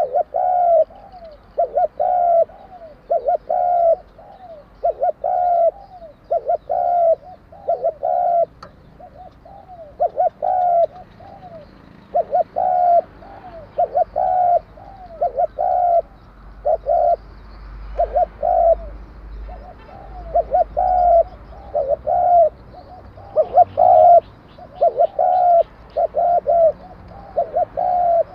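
Spotted dove cooing over and over: short, clear coo notes in quick groups with brief pauses, in the voice Vietnamese keepers call 'đồng kim' (bronze-metal). A few faint chirps from another small bird come in a little past the middle.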